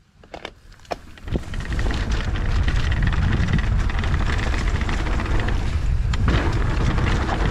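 Wind rushing over the camera microphone together with mountain bike tyres rolling on a dirt trail as the bike sets off downhill. After a few faint clicks it comes in about a second in and stays as a loud, steady, deep rush.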